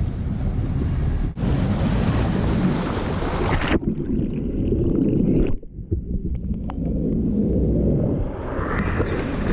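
Wind buffeting the microphone over rushing water. About four seconds in the sound turns abruptly dull and muffled, as an action camera hears it once it is under the water, with a low rumble and a few faint clicks. Near the end, splashing water at the surface comes back.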